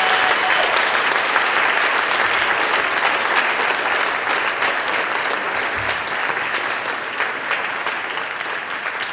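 Audience and cast applauding, a dense patter of clapping that slowly dies down.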